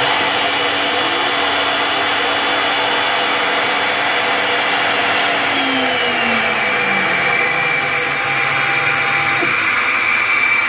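CNC Tensilkut III spindle with a two-flute bit milling a poplar board: a steady high whine over a steady rush of cutting noise, with a lower motor tone sliding down in pitch about halfway through.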